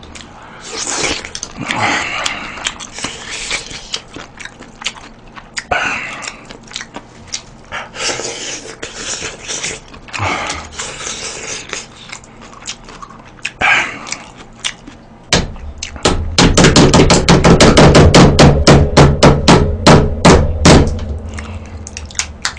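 Close-miked eating sounds: chewing and smacking mixed with small clicks as mussels are picked out of jjamppong by hand. About fifteen seconds in, a loud, fast, even run of mouth noises lasts about five seconds.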